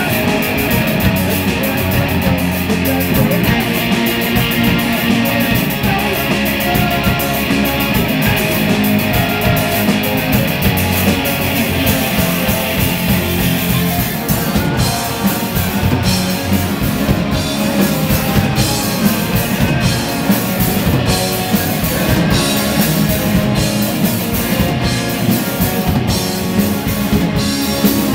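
Live rock band playing: guitars and a drum kit, with the drummer's cymbal strikes coming through more sharply and regularly from about halfway.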